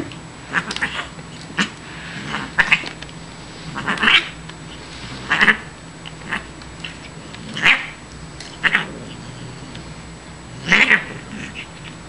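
Siamese cat making a string of short, caterwauling cries, about one a second, while playing with a chewed feather.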